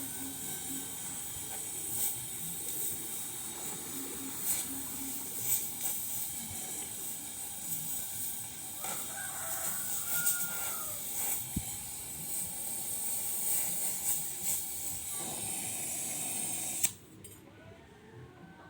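Welding arc hissing and crackling steadily as the cracked cover of a rice huller is welded, cutting off suddenly near the end.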